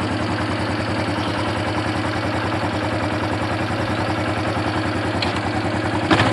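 Quad bike (ATV) engine idling steadily with an even, rapid pulse.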